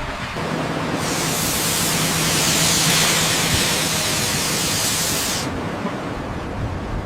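A loud, steady hiss, like a spray, starts about a second in and stops suddenly near the end. Under it runs a steady engine hum.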